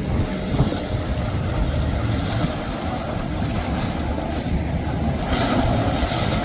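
Rigid inflatable motorboat running at high speed: a steady engine drone mixed with the rush of its wake, with wind rumbling on the microphone. The hiss of water grows louder about five seconds in.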